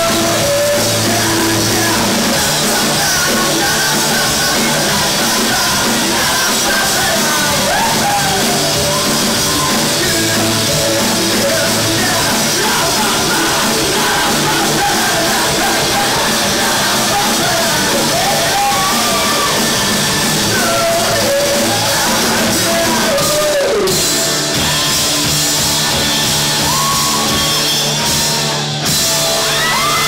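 Live rock band playing a song loud, with electric guitar, drums and a male lead vocal over the top, the singing reaching shouted lines. The band sound drops out for a moment about a second before the end, then comes back in.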